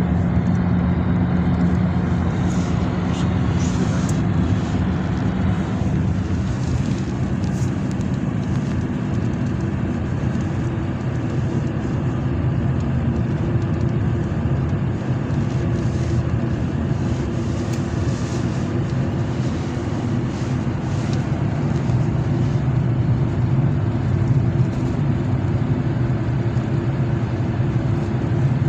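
Road traffic: a steady hum of car engines and tyre noise, with low engine tones that drift slowly in pitch and no single pass-by standing out.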